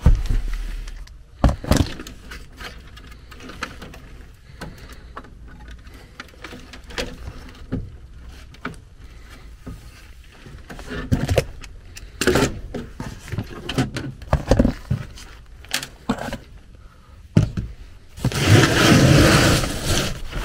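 Hands working on a furnace's sheet-metal cabinet and control board: scattered clicks, knocks and scrapes of metal panels and wiring being handled, then a loud scraping rustle of about two seconds near the end.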